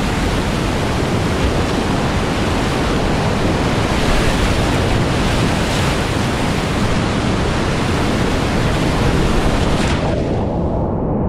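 Whitewater rapids rushing and splashing around a kayak, close and loud. Near the end the sound turns muffled for a moment as water washes over the helmet camera.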